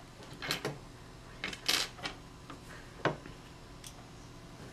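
Small hard plastic-and-metal clicks and a short rattle from the internal assembly of a BT TM7 paintball marker being handled and fitted together by hand: a few separate clicks, a brief scrape about a second and a half in, and a sharp click about three seconds in.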